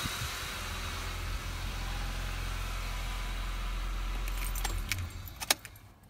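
Car engine idling steadily, then shut off with the ignition key near the end, with a few sharp clicks and a jingle of keys as it stops.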